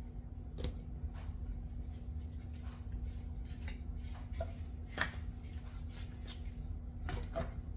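Scattered light clicks and knocks of kitchen handling as chicken wings are worked through a flour-and-cornstarch coating, with the sharpest knock about five seconds in. A steady low hum runs underneath.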